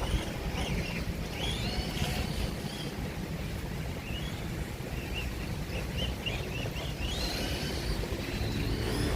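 Small birds chirping in short, quick repeated calls over a steady low rumble.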